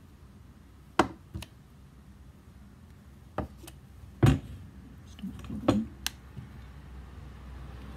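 A string of sharp knocks and clicks, the loudest about four seconds in, as the pole pruner's shaft tube and parts are handled and set down on a wooden workbench.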